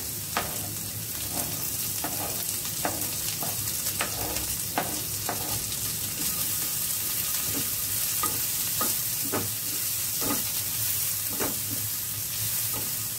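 Chopped onion sizzling with a steady hiss in hot oil in a non-stick frying pan, while a wooden spatula scrapes it off a chopping board and stirs it, giving irregular taps and scrapes.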